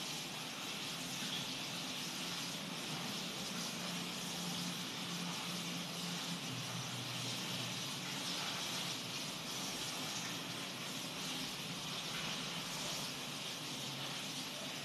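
Kitchen tap running steadily into a sink while tomatoes and chillies are washed.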